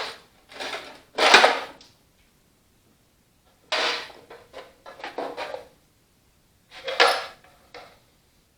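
An old metal oil can being handled in its sheet-metal holder: scraping, rattling and clunks in three short bunches with pauses between.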